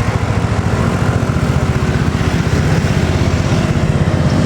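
Bus diesel engine running close by, a steady rapid low pulse with a constant pitch, growing slightly louder about halfway through.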